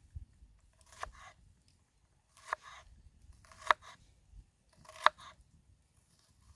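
A series of sharp knocks or strikes, about one every second and a half, each with a brief ring after it.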